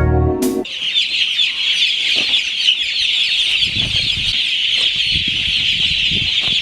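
A large flock of broiler chickens cheeping continuously, many high-pitched calls overlapping. A brief pitched sound cuts off about half a second in.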